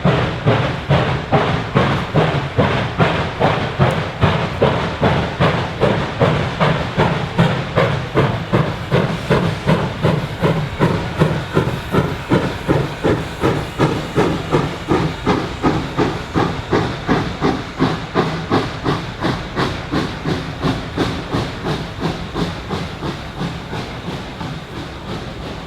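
Reading & Northern 425, a 4-6-2 steam locomotive, working under steam: its exhaust chuffs in an even rhythm of about two and a half beats a second, growing fainter near the end.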